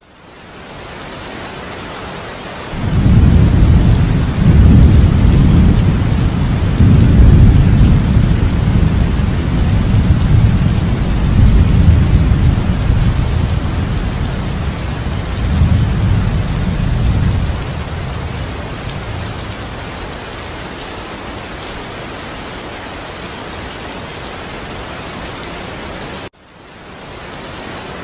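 Heavy rain falling in a steady hiss, with a long rolling peal of thunder that builds about three seconds in, surges several times, and dies away after about fifteen seconds. Near the end the sound drops out for a moment and the rain fades back in.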